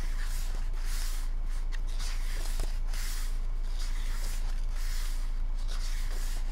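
Pages of an album photobook being flipped by hand, a soft papery swish every half second to a second, over a steady low hum.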